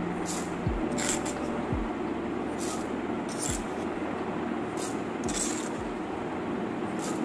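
A spoon clinking and scraping against a cup and a plastic blender mixing jar as sugar is spooned in: about seven short, sharp clinks at uneven intervals over a steady hiss.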